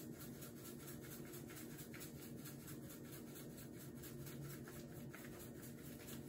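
Salt shaken from a shaker into a stainless steel pot: a rapid, even run of faint ticks, several a second, over a low steady hum.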